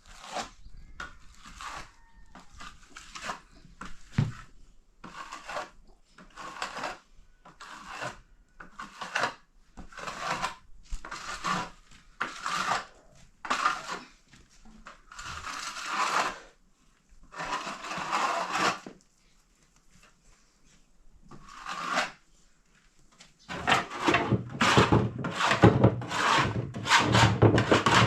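Repeated rough scraping strokes of a hand tool, about one a second, turning into a faster, louder run of strokes near the end.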